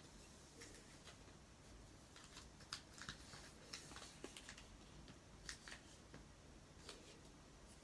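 Faint rustles and crackles of a sheet of origami paper being folded by hand, with scattered short clicks as the creases are pressed flat.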